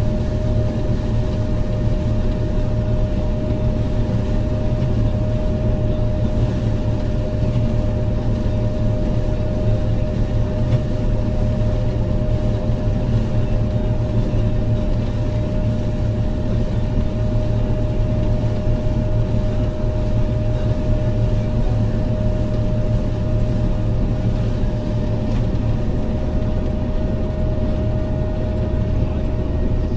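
Heavy diesel farm machinery running steadily at constant speed: a low engine drone with a steady whine held on one pitch throughout.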